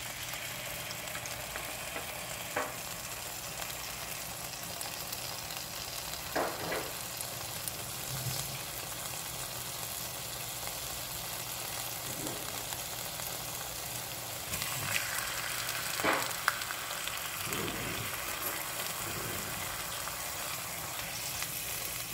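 Sliced smoked picnic ham frying in a hot, spray-greased nonstick pan, sizzling steadily. There are a few brief pops, and a louder stretch of sizzling about fifteen seconds in.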